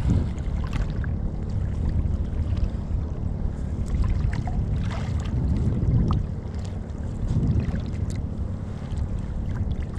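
Small fishing boat under way at sea: a steady low engine rumble, with wind buffeting the microphone and water splashing against the hull.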